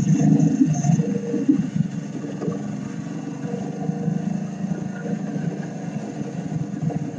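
Vehicle engine running steadily as it drives slowly across a cut hayfield, a little louder in the first second and a half.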